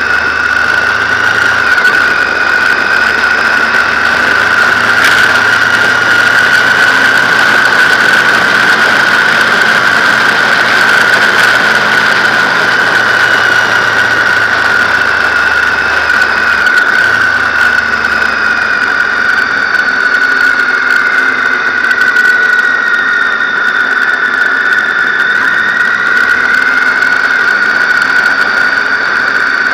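Riding noise from a camera mounted on a BMW R1200GS: a loud, steady high-pitched whine over the boxer-twin engine running at road speed, its note drifting slowly up and down.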